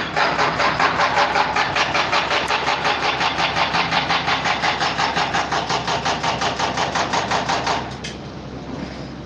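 Loud machine noise pulsing rapidly and evenly, about six beats a second, that drops off sharply about eight seconds in, leaving a quieter steady hum.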